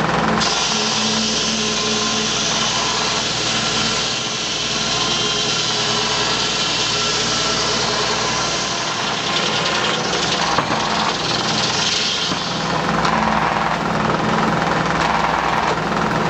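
A homemade firewood-cutting machine running steadily under power, its motor humming beneath a high hissing whir.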